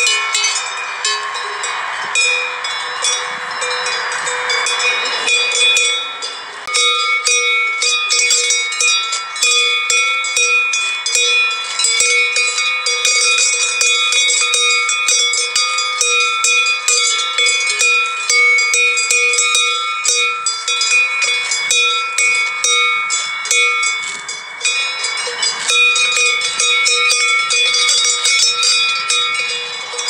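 Metal bells worn by a flock of sheep clanging continuously as the animals mill around, with a dense jangle of strikes over several steady ringing bell tones.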